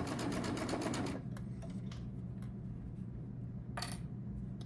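Baby Lock Triumph 8-thread serger stitching binding onto a knit mask edge with a rapid, even rattle that stops about a second in. After that there is only a low hum, a few faint ticks and one brief noise near the end.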